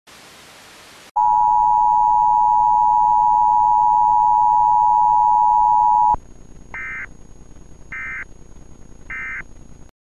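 About a second of TV static hiss, then the Emergency Alert System attention signal: a loud, steady two-note tone held for about five seconds that cuts off sharply. Then three short, higher-pitched bursts of data tones about a second apart.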